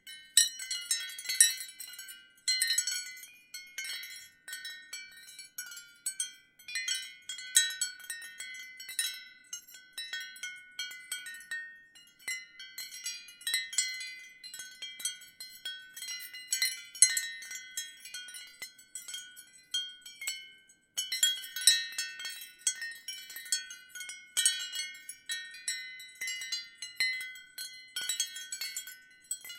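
Ceramic wind chimes tinkling lightly in a gentle breeze: irregular clusters of high, ringing strikes with short pauses between them.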